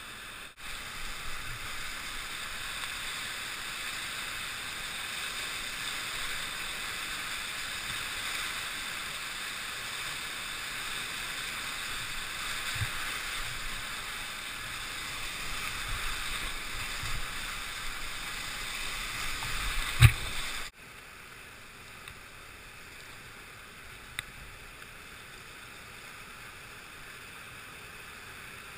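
Steady rush of river whitewater. A single sharp knock comes about twenty seconds in, then the rush drops abruptly to a quieter, steady level.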